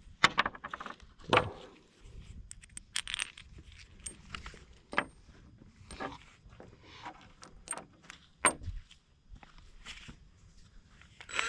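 Light metallic clinks and clicks of small steel hardware being handled: a lag screw and washer, then an impact socket being fitted onto a cordless impact wrench. The clinks come in scattered single knocks, with a few sharper ones near the start and about two-thirds of the way through.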